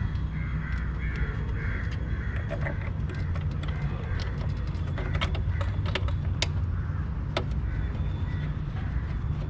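Sharp plastic clicks and light knocks as the MST air intake kit's parts are fitted in the engine bay, over a steady low hum. A few short calls sound in the first two seconds.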